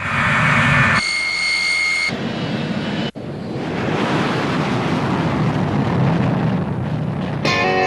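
Steady rushing noise of a jet airliner's engines, with a low rumble underneath. A single steady high tone sounds for about a second near the start, and the noise drops out for an instant about three seconds in.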